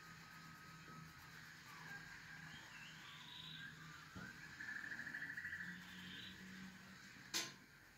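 Pencil tip scratching on drawing paper in short, rapid back-and-forth strokes, faint. The strokes quicken into a fast scribble around the middle. A single sharp click comes near the end.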